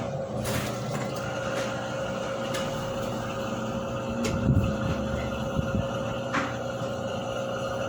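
Washing machine running with a steady mechanical hum and a steady high tone, with a brief louder rumble and knocking about four and a half seconds in; the machine is one that fails to spin.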